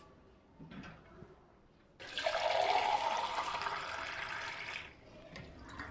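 Kitchen sink tap turned on, water gushing into a vessel held under it for about three seconds, starting suddenly and then easing off as it is shut.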